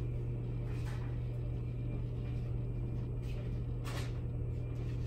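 Steady low hum with background rumble, broken by a few faint clicks, one about a second in and two more around three to four seconds in.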